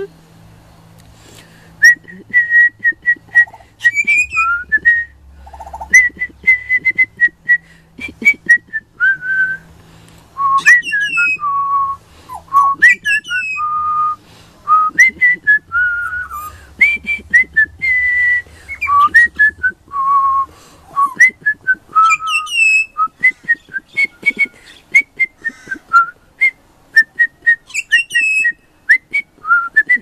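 Young pied butcherbird singing: a long series of clear whistled notes starting about two seconds in, some held and some sliding up or down, in short phrases with brief gaps between.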